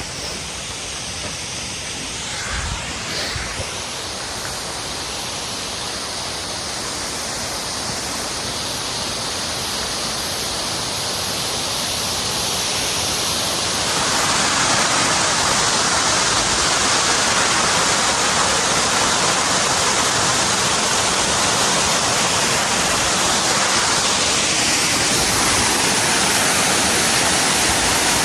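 Waterfall rushing, a steady noise of falling water that slowly grows louder and steps up about halfway through. A few soft bumps about three seconds in.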